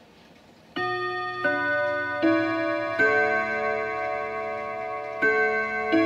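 Antique French ODO 30 clock's chime: its hammers strike a set of brass rod gongs (eight hammers on six rods) to play a melody, each note ringing on warm and long under the next. The chime starts about a second in, with four notes, a short pause, then two more.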